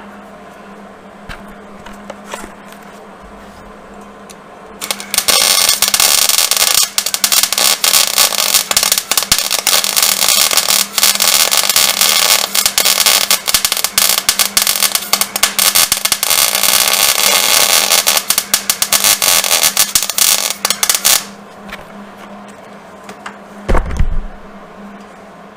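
MIG welding arc crackling steadily for about sixteen seconds as a bead is laid on a mower's broken steel clutch bracket, starting about five seconds in. A steady low hum runs underneath, and there is a single thump near the end.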